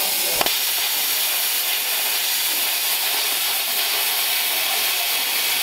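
Eastwood Versa Cut 60 plasma cutter cutting through metal: a steady, loud hiss of the arc and air stream, with a short click about half a second in.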